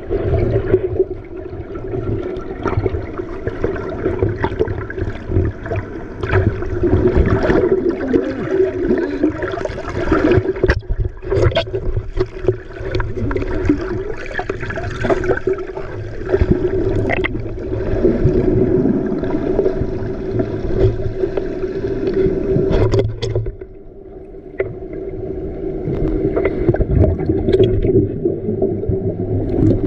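Boat engine running steadily at sea, with water and wind noise over it and a few short knocks.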